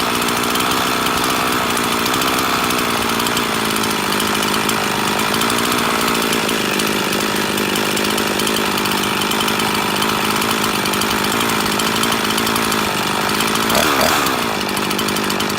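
Husqvarna 350 two-stroke chainsaw idling steadily while its carburettor idle screw is being adjusted; the idle had been set high enough to make the chain creep. About fourteen seconds in the engine briefly revs and falls back.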